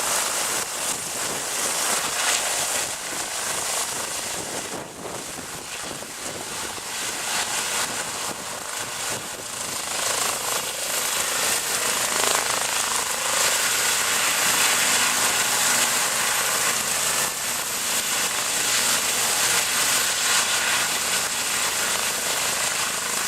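Rescue helicopter's rotor and turbine running close by: a loud, dense, rapidly pulsing whoosh that grows louder from about halfway through.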